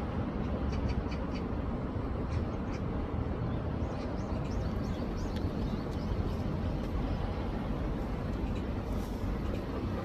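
Steady rushing of a swollen, muddy urban stream running high after rain, with a deep low rumble underneath. Faint short high chirps come and go over it.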